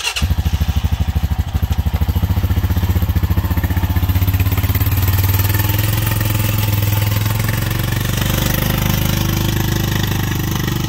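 Honda Foreman ATV's single-cylinder four-stroke engine running with an even pulsing beat at first, then more smoothly as the quad rolls off at low speed.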